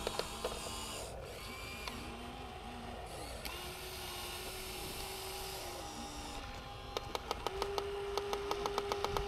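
Radio-controlled Huina excavator's small electric motors and gears whining, the pitch stepping up and down as the arm and bucket move. A fast run of ratcheting clicks sounds at the start and again from about seven seconds in.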